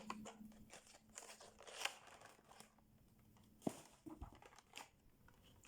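Near silence with faint handling noises: soft crinkling and a sharp click about three and a half seconds in, then a soft knock.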